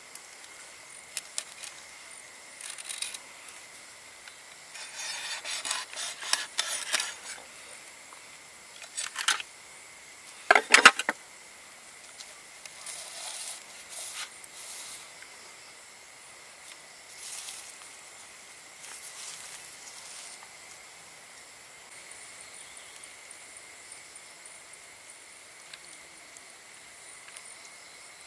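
Knife cutting and hands handling a crisp-skinned roast chicken on its bamboo spit: intermittent crackling and scraping, denser about five to seven seconds in, with one sharp knock around eleven seconds. A faint steady high-pitched drone lies underneath.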